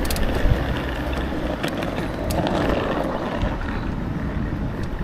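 Wind buffeting the camera's microphone and tyre rumble from a bicycle rolling over city pavement, with a few light clicks and rattles.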